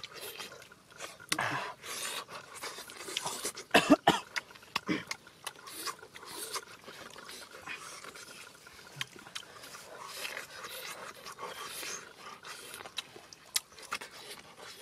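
A person eating: wet chewing and lip-smacking clicks, with breathy blows and a loud cough-like burst about four seconds in.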